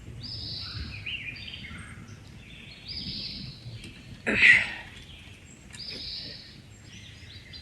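Birds calling repeatedly in the background. A short, louder burst of noise comes about four and a half seconds in.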